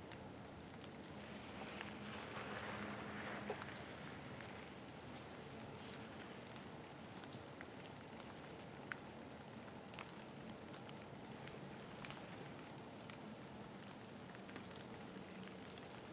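Quiet outdoor ambience with a faint, high, short chirp repeated about twice a second, fading out a little past halfway, and a few soft clicks.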